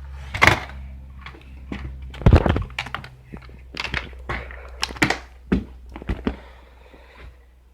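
Items being picked up and set down on a desk as it is cleared: a string of irregular knocks and thunks, the loudest about two seconds in, dying away near the end.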